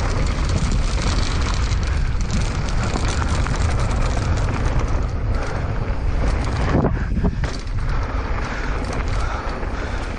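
Wind buffeting the microphone while moving fast, over a steady low rumble.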